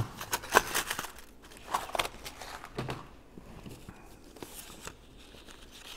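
Handling noises of a small cardboard box of brass paper fasteners being opened and a fastener picked out: a quick run of clicks and rustles in the first second, then a few scattered light ticks and card rustles as the fastener is worked into a cardboard cut-out.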